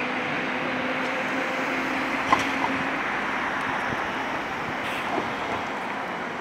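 City road traffic with cars driving past, with a steady low hum that stops about three seconds in. A sharp click a little over two seconds in is the loudest moment, with fainter clicks after it.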